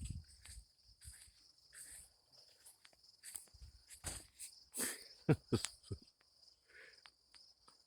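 Rustling and crackling of red amaranth stalks and dry seed heads being handled and picked, with a few sharper cracks about five seconds in, over a steady high chirring of crickets.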